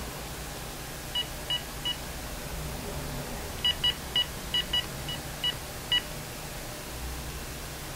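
Telephone keypad beeping as a number is dialled: short, same-pitched key beeps, three in quick succession, then after a pause eight more, over a steady low background hum.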